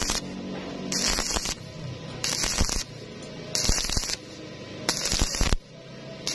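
Stick-welding arc on thin galvanized pipe, struck and broken again and again in a steady stitching rhythm: a crackling hiss lasting about half a second, about five times, roughly every 1.3 seconds, with short quieter gaps while the arc is out and the weld puddle glows.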